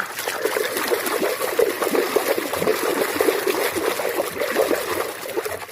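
Water splashing and trickling as toy vehicles are swished and washed by hand, a busy run of small irregular splashes that fades near the end.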